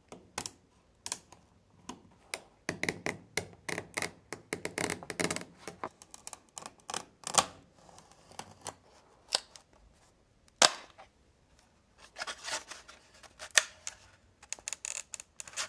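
Hobby knife scraping and cutting along the edge of a mold to trim a cured fiberglass-and-epoxy layup: an irregular run of sharp clicks and crackles, with a few louder snaps. Near the end, the freed part is sanded by hand.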